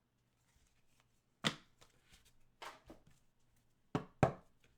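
Trading cards being handled: about five short, sharp flicks and taps as cards are flipped and set down, the last two close together near the end.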